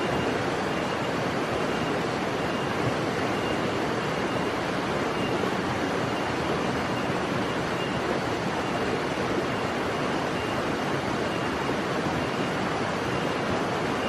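Steady rushing outdoor noise, with a faint high note repeating about once a second.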